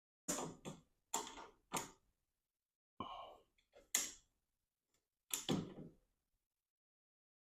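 Tools knocking and clacking against the metal hardware of a garage door torsion spring: about seven sharp, irregular knocks, each dying away quickly.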